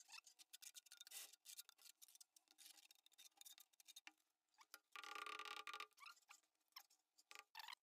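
Near silence: faint scattered clicks and light taps from handling a ceramic tile and trowel, with a faint hum of several steady tones about five seconds in.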